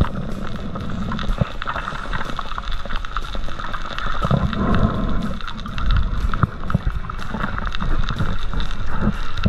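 Underwater sound picked up through an action camera's housing on a reef: dense crackling clicks under a steady hum, with a few muffled low rushes of moving water, the loudest about halfway through.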